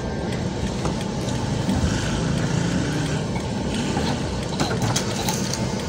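Car engine idling with a steady low rumble, heard from inside the cabin.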